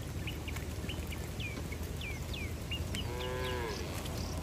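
Cow mooing once about three seconds in: a single short call that rises and then falls in pitch.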